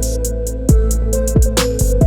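Electronic background music with a steady beat: deep kick drum thumps, hi-hat ticks and held synth notes.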